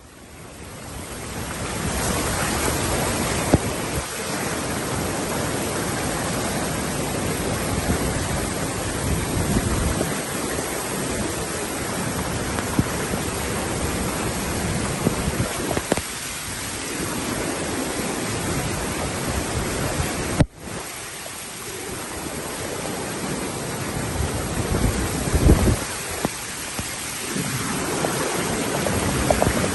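Floodwater rushing down a street in a steady, loud wash of water noise, with rain falling. There is a brief break about two-thirds of the way through where the footage cuts.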